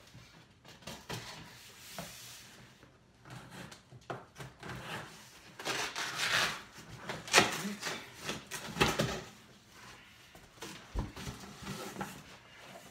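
Packing tape on a cardboard shipping box being slit with a small blade, then the cardboard flaps pulled open, rubbing and scraping in irregular strokes, loudest in the middle.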